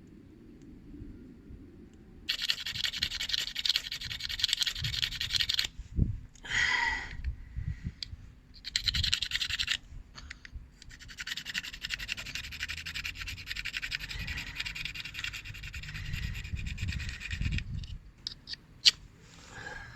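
Ferrocerium fire starter rod scraped hard and fast with its striker in three long bouts, the longest about seven seconds, throwing sparks to light a fire. A few sharp clicks near the end.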